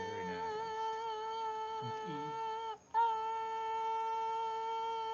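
A woman singing one steady sustained note as her vocal cords vibrate, held without wavering. It breaks off for a moment just under three seconds in and resumes on the same pitch.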